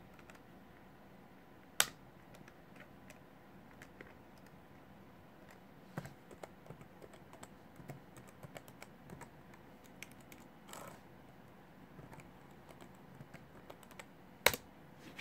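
Laptop keyboard being typed on in short runs of key clicks, with a few louder single clicks; the loudest comes near the end.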